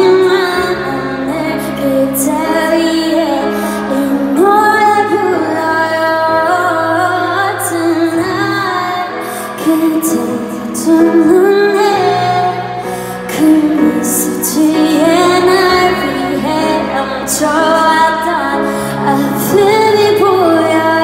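A woman singing a melody with long held notes into a microphone, accompanied by sustained keyboard chords, played live over an arena's sound system.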